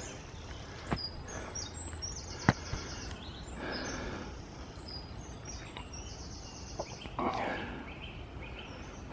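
Woodland birds singing, with fast high chirps and trills repeated a few times, over a steady low outdoor background. There are two sharp clicks, about one and two and a half seconds in, and brief rustling.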